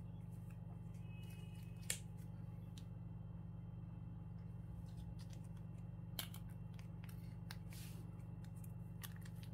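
A few sharp light clicks and a brief plastic rustle, from handling a plastic lickable cat-treat pouch, over a steady low hum.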